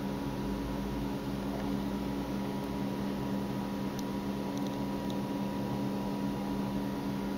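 Steady mechanical hum holding several fixed tones over a faint hiss, with a few faint ticks about four and a half seconds in.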